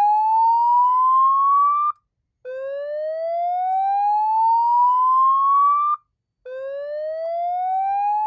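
Federal Signal 950I fire alarm loudspeaker, driven by a Fire-Lite ACC-25/50 voice evacuation panel, sounding the slow whoop alert tone. Each whoop rises steadily in pitch for about three and a half seconds, then cuts off for half a second before the next. This is the evacuation signal played between the spoken fire messages.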